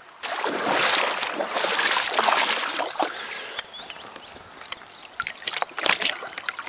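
Water rushing and splashing for about three seconds, then lighter sloshing with short sharp splashes and knocks as the RC catamaran's hull is handled at the waterline.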